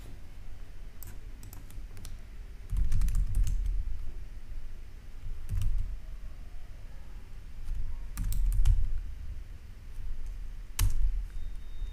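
Typing on a computer keyboard: short runs of key clicks separated by pauses, each run carrying a dull low thud.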